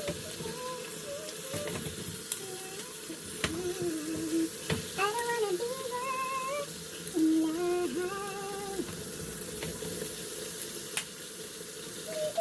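Chicken wings frying in hot oil in a pan, a steady sizzle, with a few sharp pops or clicks and a song playing in the background.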